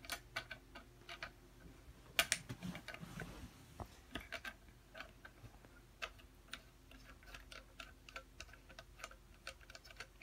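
Faint, irregular small clicks and taps of metal compression parts being handled and fitted onto the top of an MGP scooter's fork steerer tube, with a louder knock about two seconds in.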